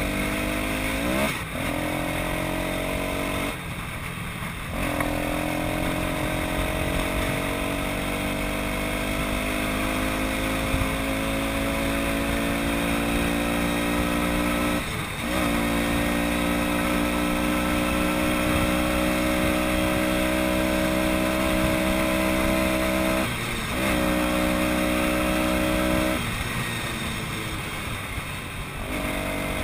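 Small vehicle engine under way on a motorcycle- or ATV-style machine, its pitch climbing slowly as it pulls. Several times it breaks off briefly, with a rush of wind noise in the gap, then picks up again at a lower pitch, as with gear changes.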